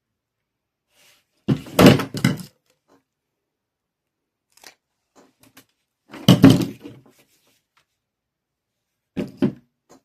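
Thunks and knocks of craft pieces being handled and set down on a work table, in three short clusters: about 1.5 s in, about 6 s in, and near the end, with a few faint clicks between.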